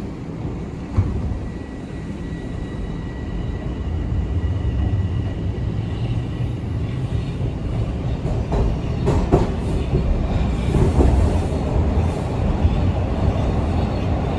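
TTC Line 1 subway train heard from inside the car as it pulls out of a station and runs along the track: a low rumble of wheels on rail that grows louder about four seconds in as it gathers speed, with a few sharp knocks.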